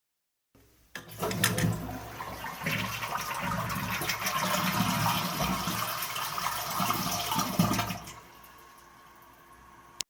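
Toilet flushing: a click about a second in, then a loud rush of water for about seven seconds that dies down to a quiet steady trickle. A sharp click comes near the end.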